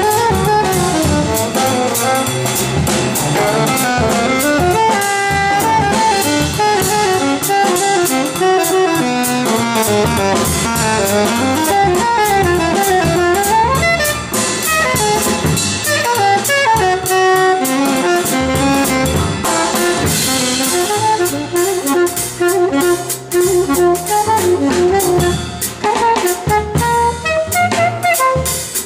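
Alto saxophone playing a fast-moving jazz line, accompanied by a drum kit.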